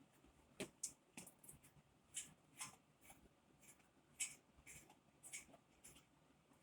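Faint, irregular clicks and scrapes of flat-pack desk parts and hardware being handled, about a dozen short sounds spread over six seconds.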